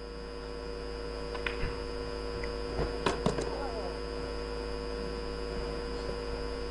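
A pool shot: a sharp click about a second and a half in as the cue strikes the ball and balls collide, then a few more knocks of the balls about a second and a half later, over a steady electrical hum.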